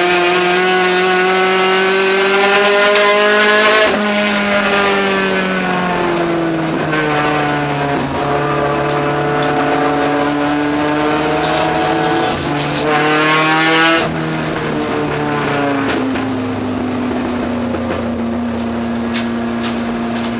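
Race car engine heard from inside the cockpit, revving up along a straight and easing off for a turn. The pitch climbs, dips about four seconds in, climbs again, then drops sharply about fourteen seconds in and settles at a lower, steady speed.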